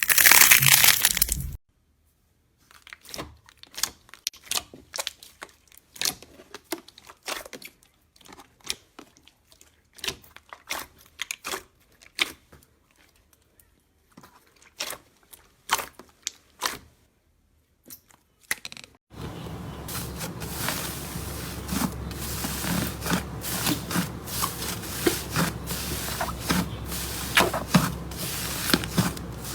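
Slime being pressed and squeezed by hand, giving scattered sharp clicks and pops. A dense crushing noise cuts off about a second and a half in, and near the end a steady hiss runs under the clicks.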